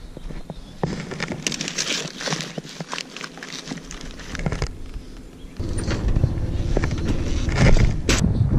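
Scattered clicks and rustling of handling, then about halfway through a steady low vehicle rumble starts suddenly and carries on, with wind on the microphone.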